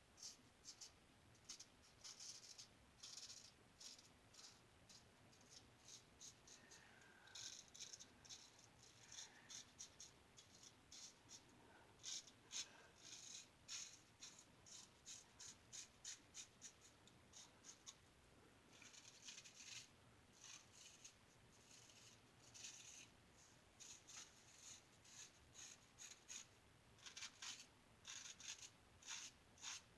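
Faint, quick scraping strokes of a single-edge razor, a Star lather catcher with a GEM blade, cutting through lathered stubble, in runs of several strokes a second with short pauses between.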